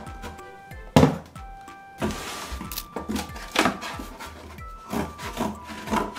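Corrugated cardboard box being cut by hand with a box cutter and scissors: a series of short rough cutting strokes, one loud one about a second in and several more later, over light background music.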